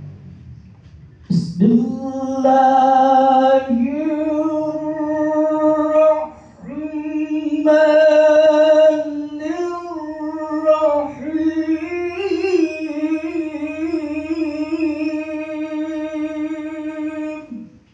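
Melodic Qur'an recitation (tilawah): one man's voice amplified through a handheld microphone, holding long, ornamented notes that waver in pitch. It begins about a second and a half in and pauses briefly twice before ending near the close.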